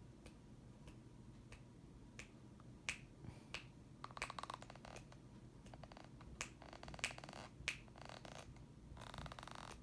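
Faint scattered clicks with a few short rattling bursts, the longest near the end.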